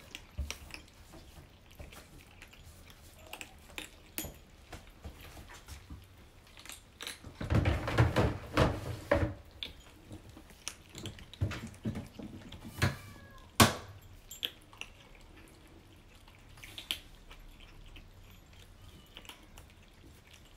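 Several kittens crunching dry kibble from ceramic bowls: scattered small crunches and clicks of pellets against the bowls. A busier, louder stretch of crunching and knocking comes about eight seconds in, and a single sharp click a little past halfway is the loudest sound.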